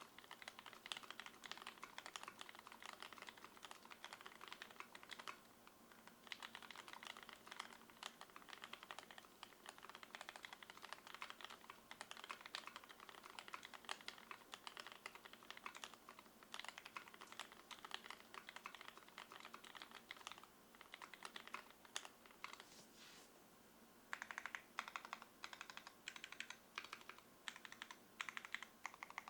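Typing on a KBDFans Tofu mechanical keyboard with lubed Gateron Black linear switches, shelf liner and foam dampening, and GMK keycaps: rapid runs of key clacks, with short pauses about six seconds in and again near twenty-three seconds.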